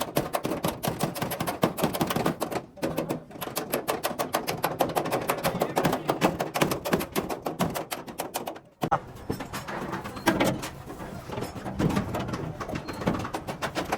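Rapid, repeated metal strikes, several a second, like hammering on truck body metal, with two brief breaks.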